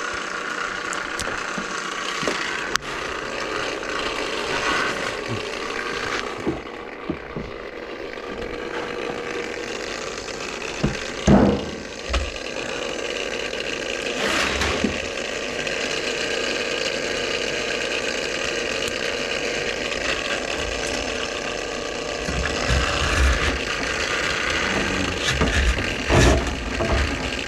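Electric drain-cleaning machine running steadily, its motor and spinning cable giving a constant mechanical whir with rattling, used to clear a kitchen drain line clogged with grease. A few sharp knocks, the loudest about eleven seconds in.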